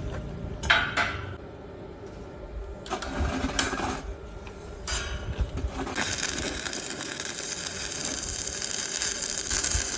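Workshop machine noise: a few short bursts, then a steady running noise from about six seconds in.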